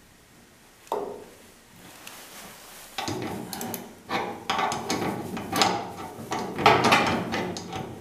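Wrench turning the forcing screw of a door hinge pin puller clamped on a car door hinge, working a tight hinge pin out. A single knock about a second in, then a run of short clicking, rasping strokes from about three seconds on, several a second.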